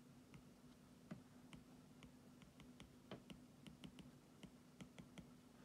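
Near silence broken by faint, irregular clicks, several a second, from computer input while a diagram is drawn, over a low steady electrical hum.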